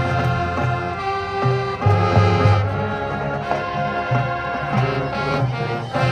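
A high school marching band playing its show: brass and woodwinds holding sustained chords over a pulsing low brass and percussion beat.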